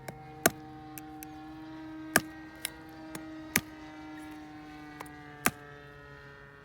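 Soft background music of long held notes, with sharp pops at irregular intervals, four of them loud, like firewood crackling in a campfire.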